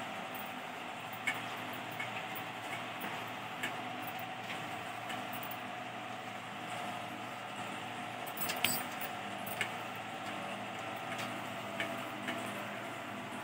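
Steady fan-like hum in a kitchen with a scattered few light clicks and taps, the loudest about two-thirds of the way through, from wooden skewers and a steel bowl being handled while marinated chicken is threaded onto the skewers.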